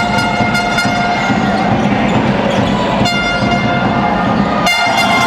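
Background music with long held, horn-like notes that change about every one and a half to two seconds.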